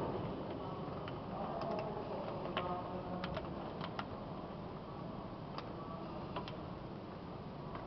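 Hail and rain falling steadily, with scattered sharp ticks of hailstones striking, heard through a closed window.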